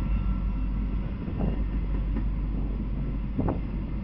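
Freight train of empty intermodal flatcars rolling past: a steady low rumble of wheels on rail, with a faint clank about a second and a half in and another near the end.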